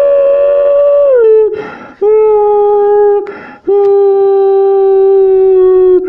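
A person's voice imitating a tornado siren through a cardboard toilet-paper tube: three held wailing tones, the first falling in pitch at its end, with quick breaths between them. The sound echoes in a small bathroom.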